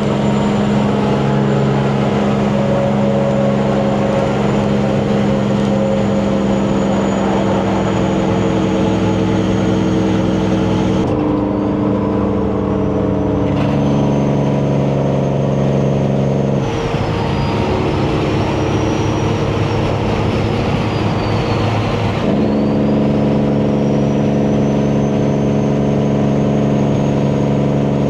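Semi truck's diesel engine pulling hard through open 8-inch stacks, with a high turbo whistle above it. The engine note changes pitch at several gear changes. At each shift the turbo whistle falls away, then climbs back up as the engine takes the load again.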